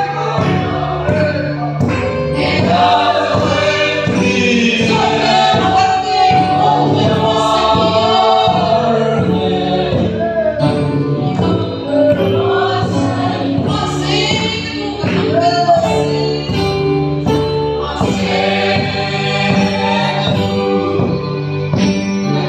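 A congregation of men and women singing a worship song together.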